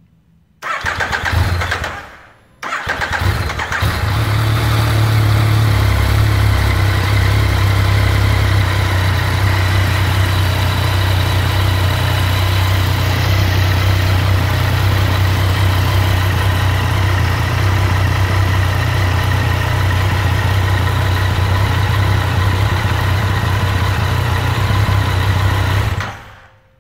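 A 2019 Yamaha MT-09's three-cylinder engine starts just after an oil change, run so the fresh oil circulates. It fires in a short burst about a second in, goes quiet for a moment, then starts again and idles steadily before stopping near the end.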